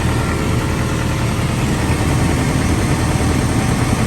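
Case CX210B excavator's diesel engine idling steadily, with the hydraulic pump it drives, heard close up at the pump compartment.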